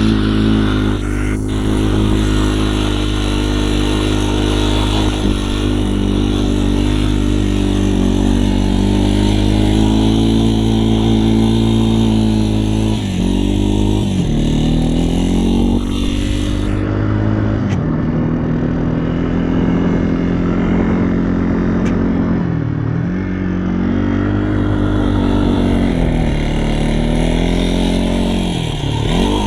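A vehicle engine running steadily under way. Its pitch dips briefly and climbs back about four times, as the throttle eases off or the gears change.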